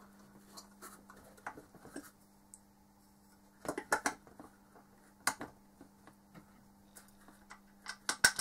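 Scattered light plastic clicks and taps as the white hub cover of a 150 mm tube fan is handled and pressed into place, with a few at a time about four seconds in and the loudest cluster near the end. A faint steady hum lies underneath.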